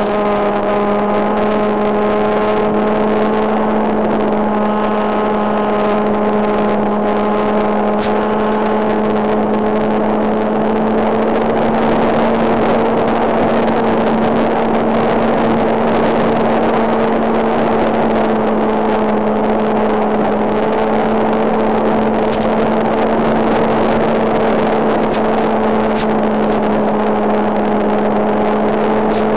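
RC model Spitfire's motor and propeller in flight, heard from the onboard wireless camera: a steady buzzing drone with rushing air noise and a few brief clicks.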